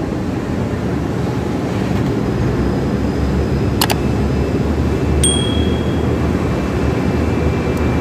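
Electric overhead travelling crane hoist running as it raises, a steady low mechanical rumble. A sharp click comes a little under four seconds in, and another click with a brief high ring a second or so later.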